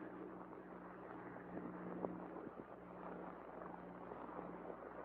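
Faint soundtrack noise of an old film print: a hiss with a steady low hum that comes and goes, and a few crackles.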